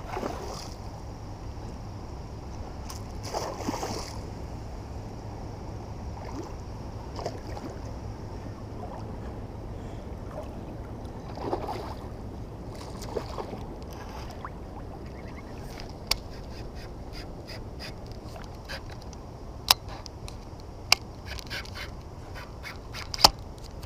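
Water sloshing and splashing gently around a kayak, with a few sharp clicks or knocks and bursts of faint ticking in the second half.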